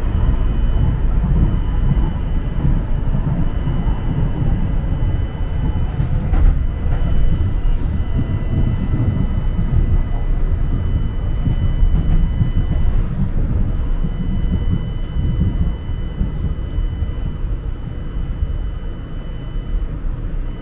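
St. Louis MetroLink light-rail car running along the line, heard from inside: a steady low rumble of the wheels on the rails with a faint steady high-pitched whine above it.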